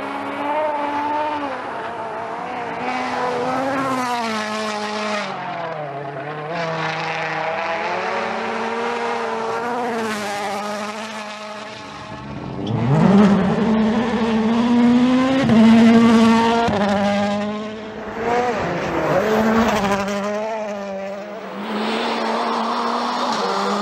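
Rally car engines at full racing revs, pitch rising and dropping repeatedly with gear changes, across several quick cuts between cars. Revs climb sharply just past halfway, at the start of the loudest stretch.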